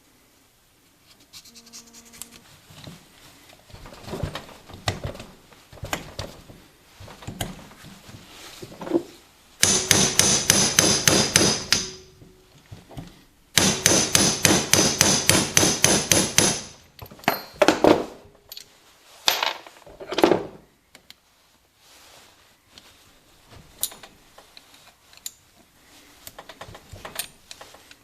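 Two runs of rapid hammer taps on a dirt bike engine's cases, about five a second, each lasting two to three seconds, as the case halves are driven together. A few single knocks and clinks of metal parts follow.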